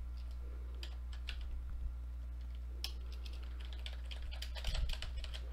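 Keystrokes on a computer keyboard, typing a string of random letters in irregular quick runs with short pauses between them. A steady low electrical hum lies underneath.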